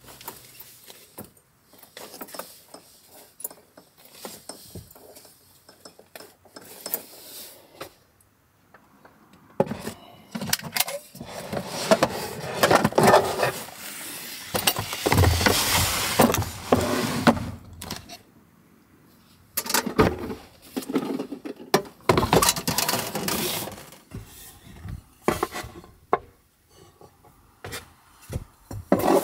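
Gear and a wooden storage box being handled and set onto wooden shelves: scattered knocks and clicks, with two longer, louder stretches of rustling and scraping, the first about ten seconds in and the second just past twenty seconds.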